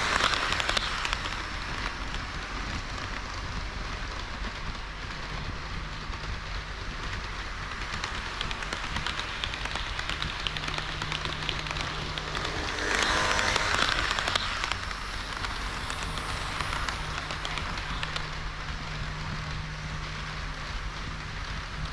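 HO-scale model train running on the layout track: a steady hiss of the wheels rolling on the rails with a faint motor hum that comes and goes. The rolling noise swells louder twice, at the start and about thirteen seconds in.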